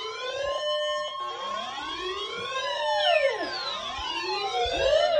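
Several overlapping sirens wailing, rising and falling in pitch, over a steady weather-radio alert tone that stops near the end.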